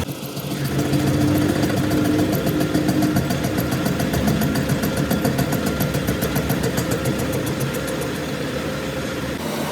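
Workshop machine running steadily with a fast, even ticking over it; a held hum sounds for the first couple of seconds, and the sound changes about a second before the end.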